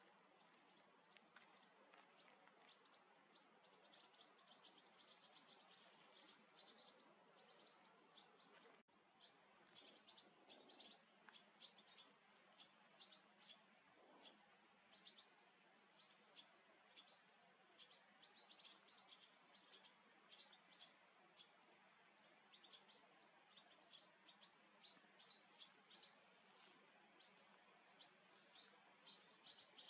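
Barn swallows twittering, faintly: quick high chirps in a dense run about four to six seconds in, then scattered chirps to the end.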